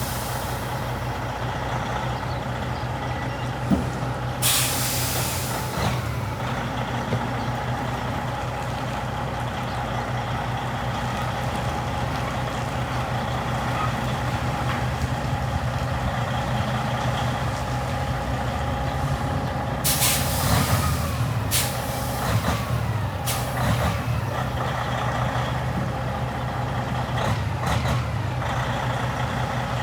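Tractor-trailer's diesel engine running steadily, with sharp hisses of air from the air brakes, one about four seconds in and a cluster of several around twenty seconds in.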